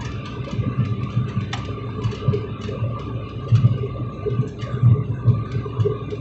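Cabin noise of an ATR 72-600 turboprop airliner in flight: a steady drone of its engines and propellers, with a thin steady whine above it and a few faint clicks.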